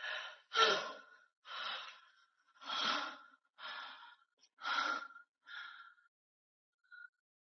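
A woman retching and gasping for breath over a toilet: about seven short heaves and breaths, roughly one a second, growing weaker and stopping near the end.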